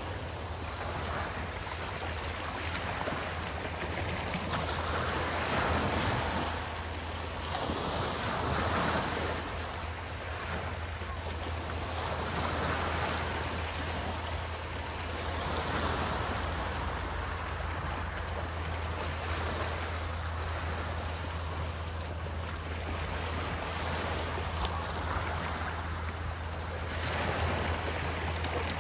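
Sea waves washing ashore, swelling and falling every three to four seconds, over a steady low hum.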